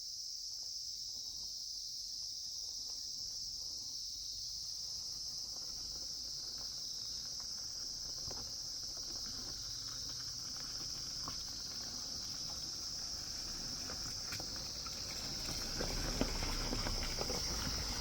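Steady high-pitched chorus of insects buzzing without a break. A low rumble grows near the end.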